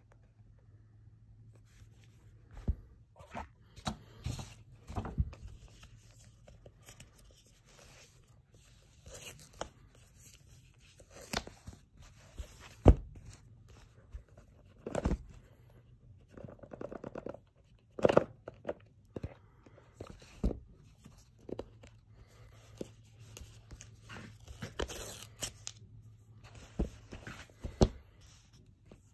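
Hands handling a sealed iPhone box and its packaging: scattered knocks and taps of cardboard, with stretches of tearing and rustling.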